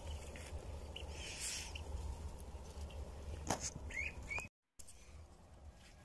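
Outdoor ambience of low wind rumble on the microphone, with a few faint, short bird chirps about three and a half to four seconds in. The sound drops out completely for a moment at an edit about four and a half seconds in, then returns quieter.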